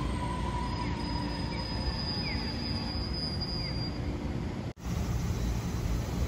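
Low-floor city tram running slowly along its track, with a low rumble and a thin, steady high whine for about three seconds. About three-quarters through, the sound cuts off abruptly and gives way to a street's traffic rumble.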